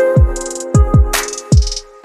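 Background music with an electronic beat: deep kick-drum hits and a couple of cymbal splashes over sustained chords. It cuts off just before the end.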